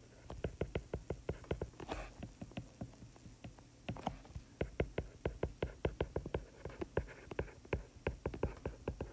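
Stylus nib tapping and clicking on a tablet screen during handwriting: a quick, irregular run of light clicks, a few a second, with a short lull about a third of the way through.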